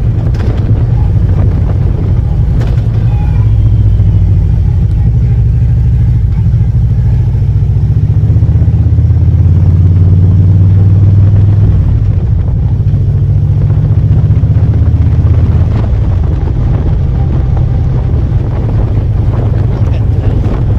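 Harley-Davidson motorcycle engine running at riding speed. Its note swells for a few seconds midway through, then eases back, with wind noise on the microphone.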